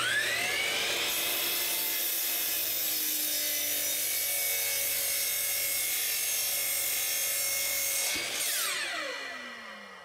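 Hitachi C12RSH sliding compound miter saw starting up and crosscutting the end of a wooden board. The motor whines up to speed, runs steadily through the cut, then winds down with a falling whine about eight seconds in once the trigger is released.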